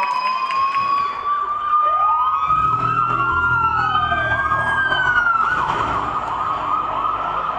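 Several siren wails overlapping, each slowly rising and falling, played as a sound effect through the stage speakers in a dance routine's soundtrack. Low bass notes of the backing track come in about two and a half seconds in.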